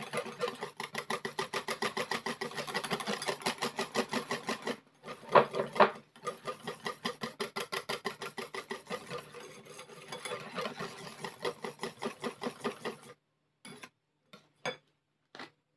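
Wire balloon whisk beating crêpe batter in a ceramic bowl, its wires clicking and swishing against the bowl in a fast, even rhythm. A short pause near the middle brings a couple of louder knocks, and the whisking stops about two seconds before the end, leaving a few soft clicks.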